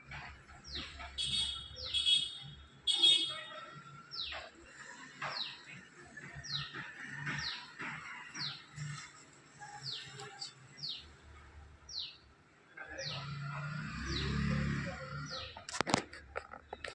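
African grey parrot chirping over and over, each call a short downward-sliding whistle, about one a second. A sharp click comes near the end.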